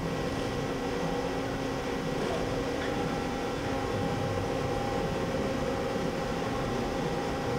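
AWEA CNC horizontal boring mill running during an automatic tool change: a steady mechanical hum with several fixed tones, no distinct clunks.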